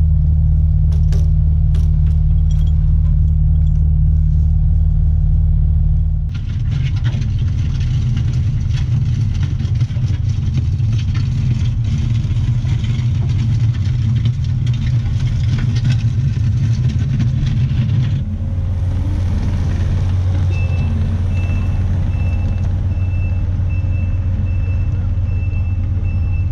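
Mini excavator's diesel engine running steadily, then a louder, rougher working sound about six seconds in. About eighteen seconds in it changes back to a steadier engine tone, with a repeating high beep from a reversing alarm joining a couple of seconds later.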